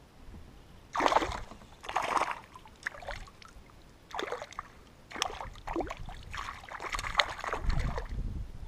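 A hooked yellow perch thrashing and splashing at the water's surface as it is reeled in beside a kayak: a string of short splashes, the first about a second in.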